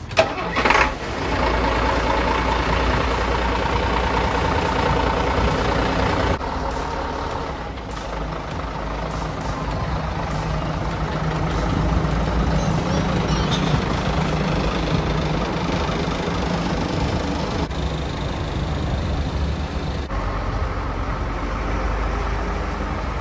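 Scania fire truck's diesel engine running steadily, with a sharp short sound about a second in.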